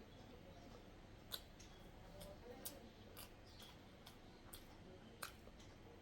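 Faint wet mouth clicks and smacks of chewing boiled egg, about ten short sharp clicks at irregular spacing over a low hiss.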